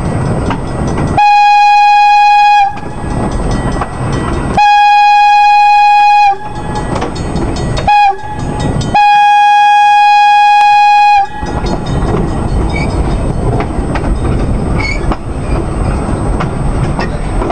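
Horn of an ex-New York City Transit R-30 subway train sounding the grade-crossing signal: two long blasts, a short one and a final long one, a single steady note, very loud. Between and after the blasts the wheels run along the track with rail-joint clicks.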